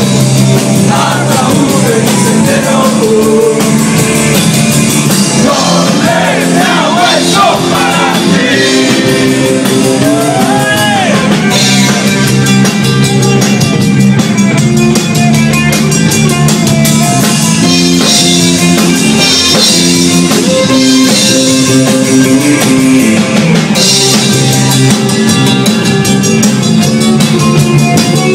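Live rock band playing loudly: electric guitar and drum kit, with a singing voice over them for roughly the first ten seconds, then bright cymbals with the guitars.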